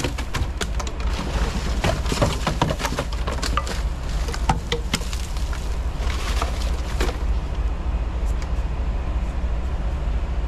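Plastic bottles and wrappers rustling and clattering as litter is swept out of a bus's entry steps, heard as many short sharp clicks for about the first seven seconds. Under it is the steady low hum of the parked bus's engine.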